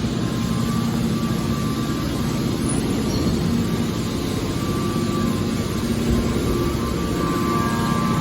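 Hydraulic scrap metal baler running: a steady mechanical hum and whine from its hydraulic pump and motor, with a faint higher tone coming in more strongly near the end.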